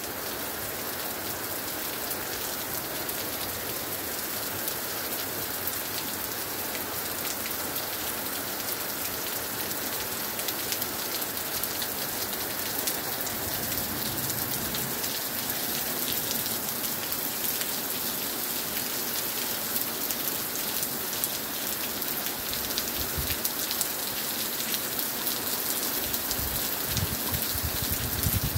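Steady rain falling on a lawn and splashing on a wet patio, with a dense patter of individual drops, growing slightly louder toward the end.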